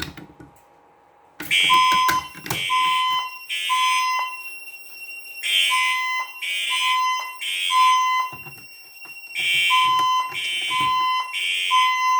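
A few clicks, then about a second and a half in a fire alarm system goes into alarm: notification horns sound in groups of three pulses with a pause between groups, the temporal-3 evacuation pattern, a harsh horn tone with a steady higher beep under it.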